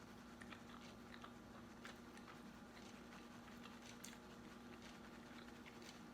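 Faint chewing and biting: scattered small mouth clicks over a steady low hum.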